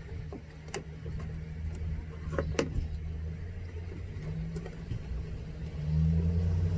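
Engine air filter being lifted out of its opened plastic air cleaner box: a few light clicks and rattles. Under them runs a steady low vehicle-engine hum that gets louder near the end.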